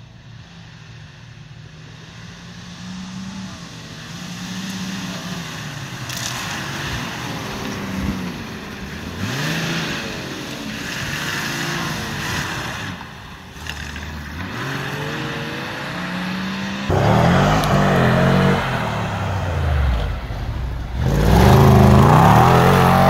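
Off-road SUV engines revving up and down again and again as they push through mud, growing louder as a vehicle comes close; the hardest revving is near the end.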